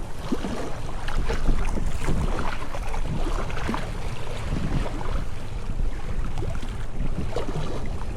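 Wind buffeting the microphone, with water lapping and splashing in irregular small bursts.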